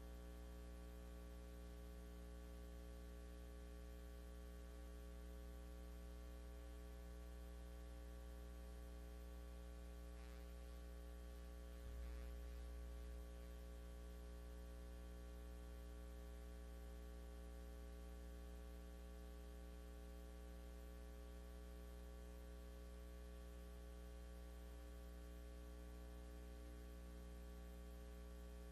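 Low, steady electrical mains hum on the sound feed, made of many evenly spaced steady tones. A brief low bump comes about twelve seconds in.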